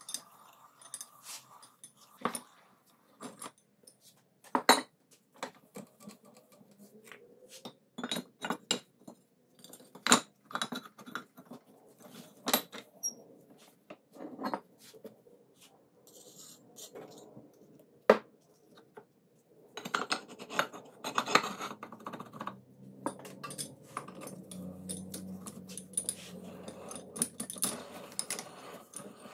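Metal parts clinking and knocking as they are handled, in irregular single clicks and then a denser clatter in the second half.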